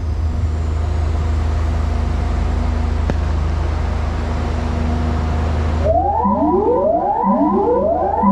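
Outdoor PA loudspeaker system under a sound test, playing a steady deep bass drone with hiss. About six seconds in it switches to rising siren-like sweeps, about one a second.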